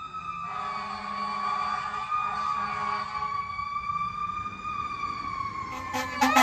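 Fire engine siren sounding a long wail whose pitch slowly falls, with a second, lower steady tone joining about half a second in. Near the end, a louder, rapidly pulsing sound that rises in pitch cuts in.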